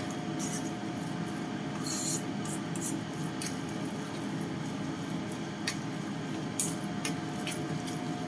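A utensil stirring and working a sticky minced shrimp and pork paste: a steady wet rubbing with scattered short clicks.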